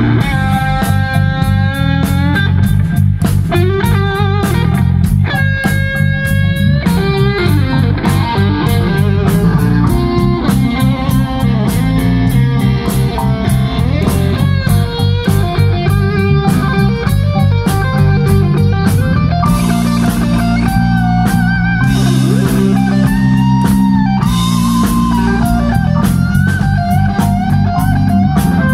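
Live rock band playing an instrumental passage: an electric guitar leads with held and bent notes over bass guitar and drum kit.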